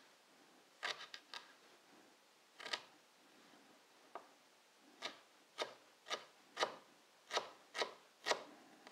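Chef's knife chopping peeled ginger on a cutting board: a few scattered knife taps at first, then a steady run of chops about two a second in the second half.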